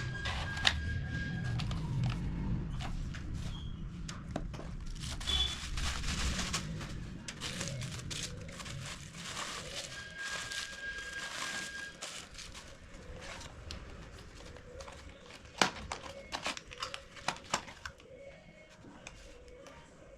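Crinkling and rustling of packaging being handled, with scattered sharp clicks and knocks.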